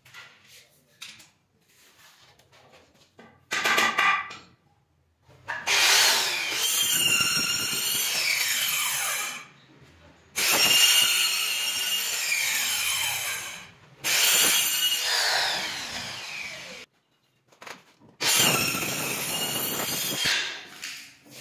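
Hand-held electric circular saw cutting through a large white panel: a short burst, then four runs of three to four seconds each with short pauses between, the pitch dropping within each run as the blade cuts.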